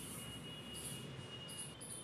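Quiet room tone with a faint, steady high-pitched whine that stops near the end.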